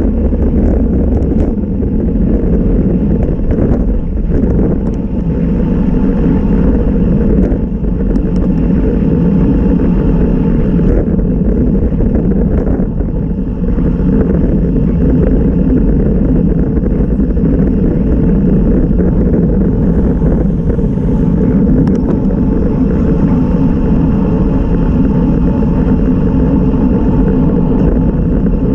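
Steady rush of wind on the microphone, with road noise, from a road bicycle racing at about 22 to 31 mph.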